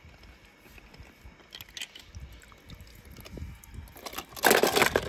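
Small toy vehicles clicking against each other in a plastic bucket as a hand rummages through them, then a louder clatter lasting about half a second near the end.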